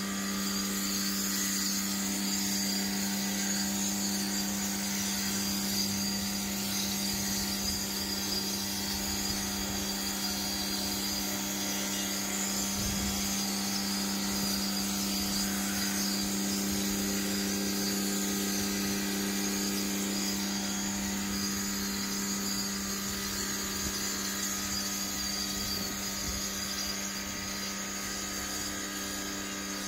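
Total TGT11356 1800 W electric pressure washer running steadily at high pressure. Its motor and pump give a constant hum under the hiss of the water jet spraying onto glass solar panels.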